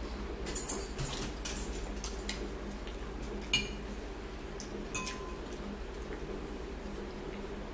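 Metal fork and spoon clinking and scraping against ceramic bowls while eating, a scatter of light clinks with two sharper ringing clinks about three and a half and five seconds in, over a steady low hum.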